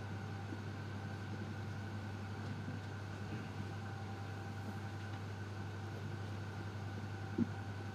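Steady low hum with faint, even higher tones held above it, and one short bump near the end.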